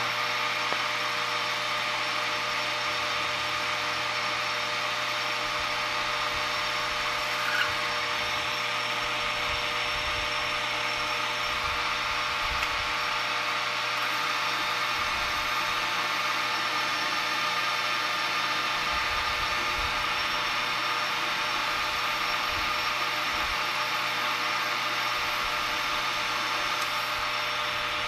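Metal lathe running steadily while a freshly ground single-point tool bit takes a test turning cut along a round bar, with a steady gear whine over the cutting noise. The feed is probably too fast for the spindle speed, which the machinist blames for a rough surface finish.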